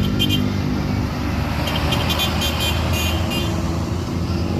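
Intercity bus passing with its engine running, its multi-tone telolet horn sounding in quick stuttering bursts just at the start and again from about two seconds in.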